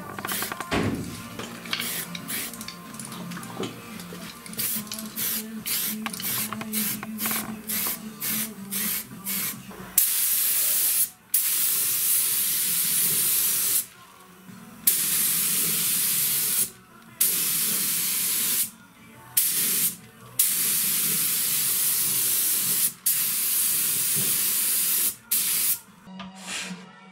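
Paint spraying in loud, steady hissing passes of one to three seconds with short breaks between them, starting about ten seconds in. Before that there are lighter clicks and handling noises.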